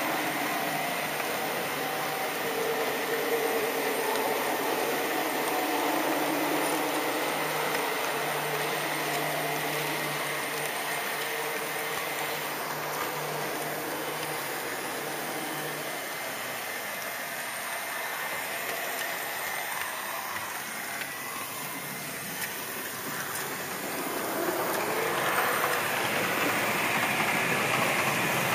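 Model train running along its track: a steady rolling rumble of wheels on rails with a faint motor hum, growing louder near the end.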